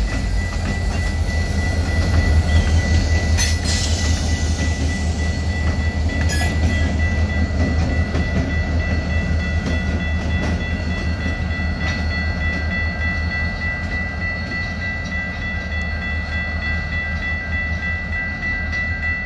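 EMD GP38-2 and GP40-2L diesel locomotives rumbling as they move a string of autorack cars through a crossing, the rumble slowly easing as they draw away, with a couple of sharp knocks about three and six seconds in. A level-crossing warning bell rings as one steady high tone throughout.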